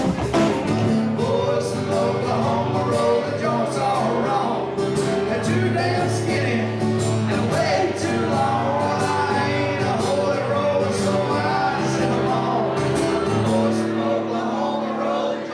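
Live band music with long held chords and scattered sharp hits.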